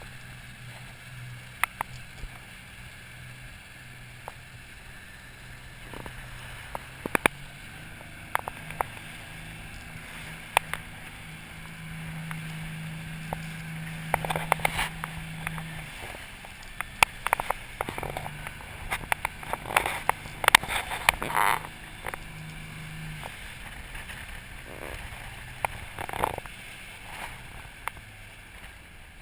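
The motor of a rigid inflatable boat under way, a steady low hum that picks up in pitch twice for a few seconds, with the hull slapping choppy water and spray hitting in sharp knocks, thickest past the middle.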